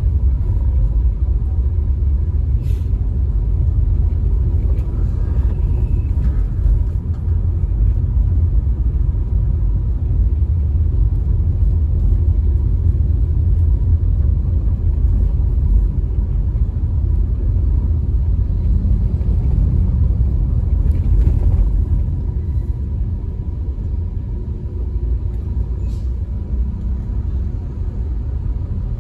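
Steady low rumble of a car driving, its road and engine noise heard from inside the cabin.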